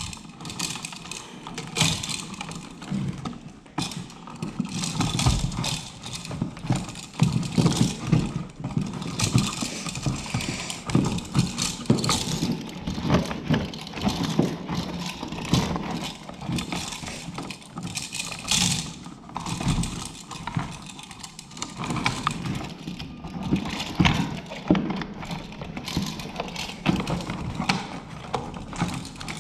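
Hands working electrical wiring at a wall switch box, a dense run of irregular clicks, scrapes and knocks.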